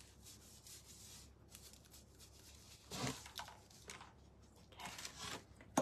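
Faint rubbing of a paintbrush scrubbing paint over a painted board, with two louder scuffs about three and five seconds in as the board is shifted on the table.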